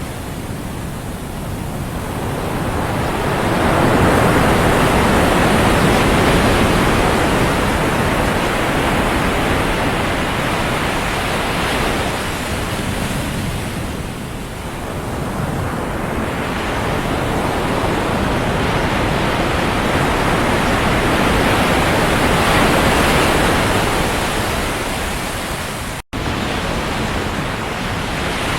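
Ocean surf on a sandy beach: a steady rush of breaking waves that swells, eases off around the middle and builds again, cutting out for an instant near the end.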